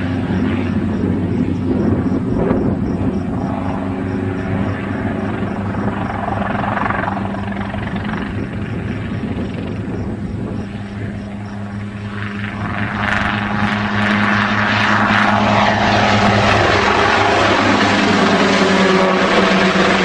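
Helicopter engine and rotor running continuously through aerobatic flight, getting louder about two thirds of the way through, with the pitch rising and falling.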